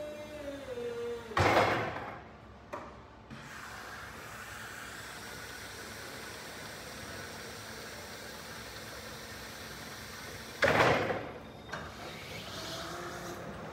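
Still FM-X14 electric reach truck at work: its motor whine falls in pitch at the start, then two loud short bursts of noise about a second and a half and eleven seconds in, each fading quickly and followed by a click, over a steady hum.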